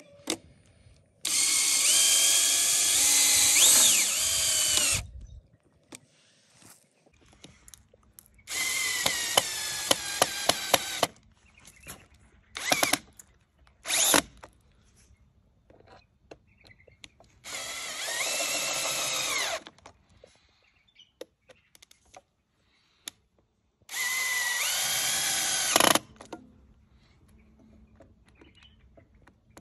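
Cordless drill-driver driving screws through steel table-leg mounting plates into a wood slab. Four runs of a few seconds each with a high motor whine, the second one with rapid clicking, plus two short blips of the trigger between runs.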